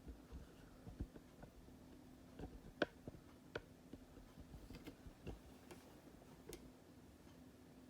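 Faint, irregular plastic clicks and ticks from a K'nex model Zipper ride being spun around, over a faint steady hum.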